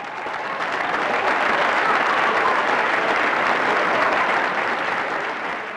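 Crowd applauding: dense clapping that swells up and then fades away near the end.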